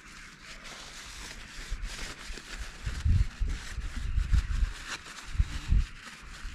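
Handling noise from cleaning a motorcycle's rear brake fluid reservoir by hand: scratchy rubbing and small clicks, with soft low thuds from about three seconds in.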